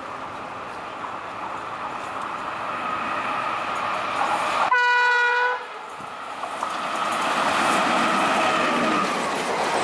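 A WAP-5 electric locomotive hauling an express passenger train comes on at speed, the running noise of wheels on track growing louder. It gives a single horn blast of about a second a little before halfway, then runs close by with loud wheel and coach noise.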